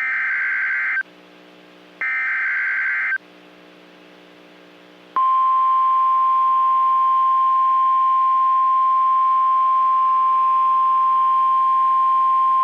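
NOAA Weather Radio EAS alert: the last two SAME header data bursts, harsh buzzy digital screeches about a second long each with a second's pause between, then, about five seconds in, the steady 1050 Hz weather radio warning tone starts and holds one unbroken pitch. The alert announces a tornado warning.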